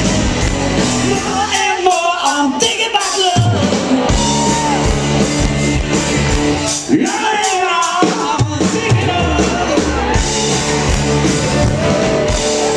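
Live rock band playing, a male lead vocal over electric guitars, bass and drums, heard through a pocket camcorder's microphone. Twice the bass and drums drop out for a second or two, leaving the voice and guitar.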